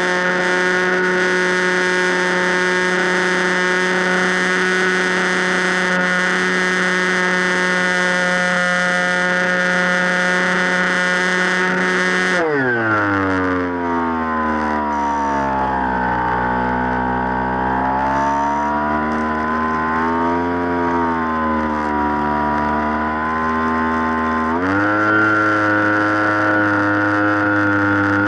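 Electric motor and propeller of an FPV Raptor radio-controlled plane running at a steady pitched whine. About twelve seconds in it is throttled back: the pitch slides down and wavers at part throttle, then steps up again twice near the end as the throttle is opened.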